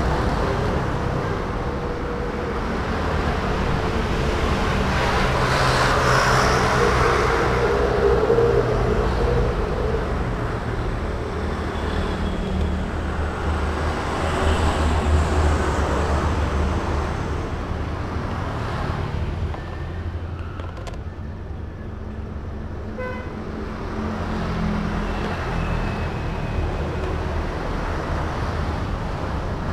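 Road traffic going by: motorbikes and cars passing close, the noise swelling as each one goes past, with a short horn toot about three-quarters of the way through.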